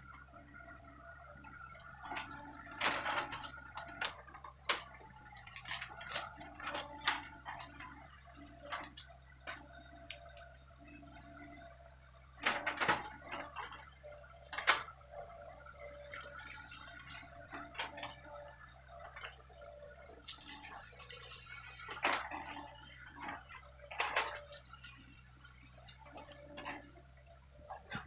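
Distant Hitachi hydraulic excavator's diesel engine running with a steady low drone and faint whine, while irregular sharp cracks and clicks come through as it works through brush and trees.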